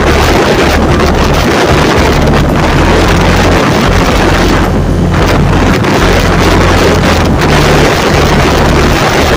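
Loud wind noise buffeting the microphone of a Honda CG125 motorcycle under way, with its single-cylinder four-stroke engine running underneath.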